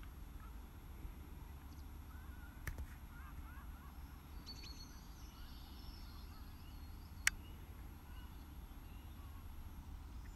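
Faint outdoor ambience: a low steady rumble with a few distant bird calls, and a single sharp click about seven seconds in.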